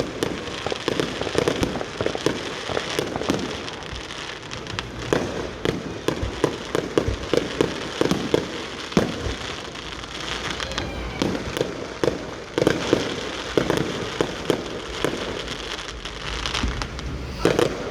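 Fireworks going off: a dense, continuous run of sharp bangs and crackling pops in quick succession.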